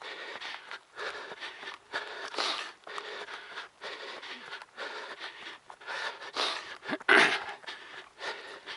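A trail runner breathing hard, close to the microphone: quick, heavy panting breaths in a steady rhythm. About seven seconds in there is one sudden, louder thump.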